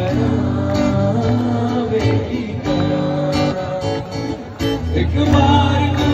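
Acoustic guitar strummed, with a man singing over it into a microphone.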